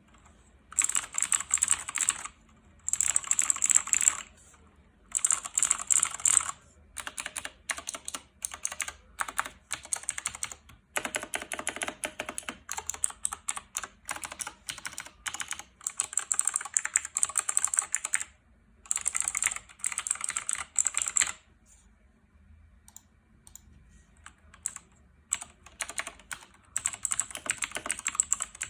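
Razer BlackWidow RZ03-0286 mechanical keyboard, fitted with pudding keycaps and lubed stabilizers, being typed on in fast runs of rapid keystrokes with short pauses between. The clicking is lighter and sparser for a few seconds past the middle.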